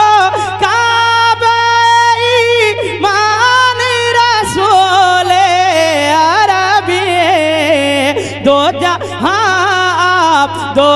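A man singing a naat (Urdu devotional poem) over a loudspeaker system. He draws out one long melismatic phrase, holding notes and bending them in wavering ornaments. A steady low hum runs underneath.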